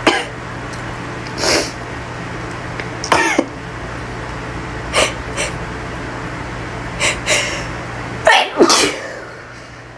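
A woman sneezing over and over in an allergic sneezing fit from pollen: about seven sneezes a second or two apart, some in quick pairs. A steady low hum behind them stops about eight seconds in.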